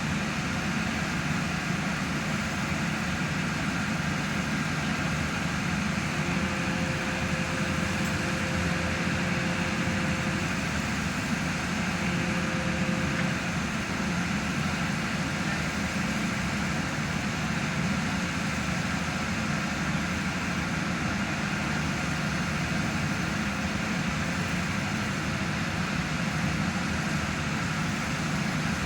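Hydraulic static pile driver's diesel engine and hydraulic power pack running steadily, with a faint added whine for several seconds midway.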